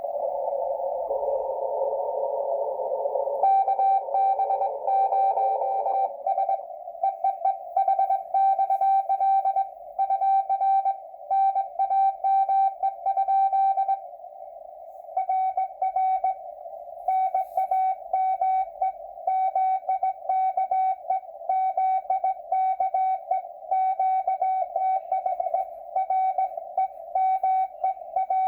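Morse code (CW) heard through an amateur radio receiver: a band of receiver hiss, then from about three seconds in a steady-pitched tone keyed on and off in dots and dashes. The sending pauses briefly about halfway through, then resumes.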